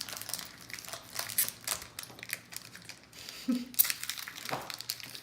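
Trading-card pack wrapper crinkling and rustling in irregular crackles as the pack is opened and the cards are handled.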